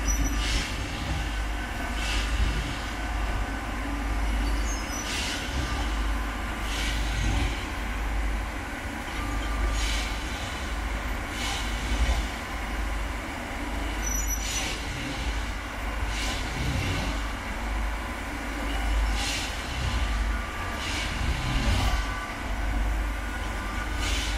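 Railway ballast tamping machine at work: a deep steady rumble, with a short hissing, crunching burst every two to three seconds as it works its way along the track from sleeper to sleeper.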